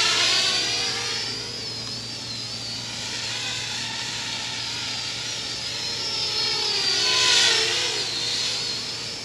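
Parrot Bebop 2 quadcopter in flight: the high whine of its four propellers. It swells and its pitch bends as it comes close, loudest at the start and again about seven seconds in.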